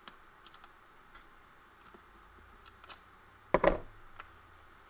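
Scissors trimming the edge of a paper-covered book cover with a few small, faint snips, then one louder knock about three and a half seconds in.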